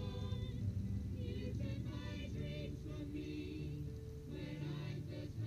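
A small group of men and women singing a Christmas carol together, with an electronic keyboard accompanying them.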